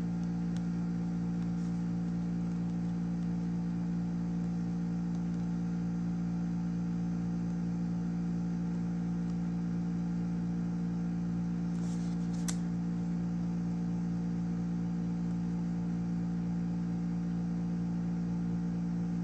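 A steady machine-like hum, with a few faint light clicks, one a little more distinct about two-thirds of the way in.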